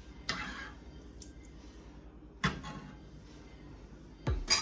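A utensil stirring soup in a pot, with a short scraping stroke near the start, a sharp knock about two and a half seconds in, and a couple of louder knocks near the end.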